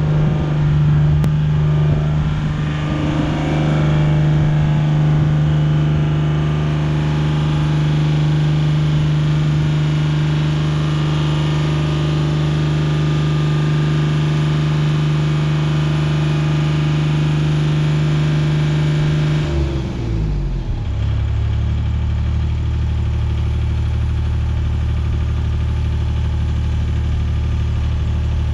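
The engine of a JLG 3394RT rough-terrain scissor lift runs steadily at raised speed, driving the hydraulics as the scissor platform rises. About twenty seconds in, its pitch drops and it settles to a lower, steady idle as the lift stops.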